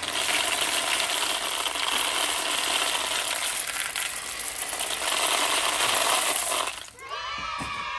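Dry elbow macaroni poured from a cardboard box onto plastic balls and candy: a dense stream of tiny clicks that stops abruptly near the end.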